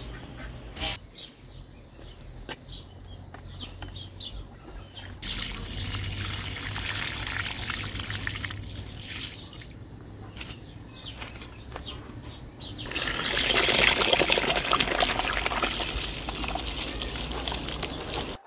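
After a few light clicks, water runs and splashes as rice is rinsed in a plastic basin at an outdoor tap, loudest for a couple of seconds past the middle. Near the end, wet rice and water are tipped into a metal pot of water.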